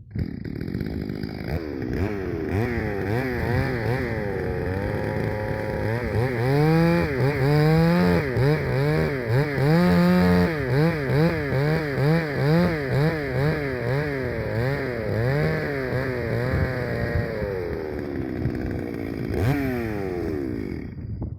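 Stihl chainsaw running, its engine speed and loudness rising and falling about once a second through the middle as it works through a cut in a tree. It revs up briefly near the end, then cuts off suddenly.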